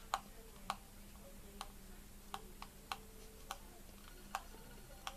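Faint, irregular light clicks and taps of a plastic lathering bowl being handled, about nine of them, as sliced shaving-soap pieces are pressed into its bottom.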